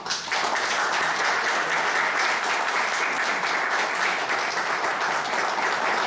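Audience applauding, a dense steady clapping that sets in at once and holds without fading.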